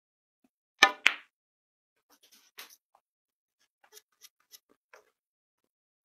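A cue tip strikes the cue ball, and a quarter second later the cue ball clacks sharply into an object ball on a pool table: two loud clicks about a second in. A few faint knocks follow over the next few seconds as the balls run into the cushions and the pocket.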